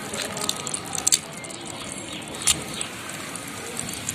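Crab shells clicking and cracking as live crabs are handled and pulled apart by hand over an aluminium pot: quick irregular crackles, with sharper cracks about a second in and about halfway through.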